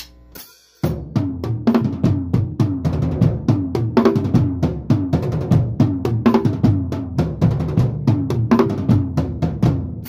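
Drumsticks clicked together for a count-in, then under a second in a rock band comes in: drum kit with bass drum, snare and cymbals playing a fast, steady groove under an amplified guitar riff.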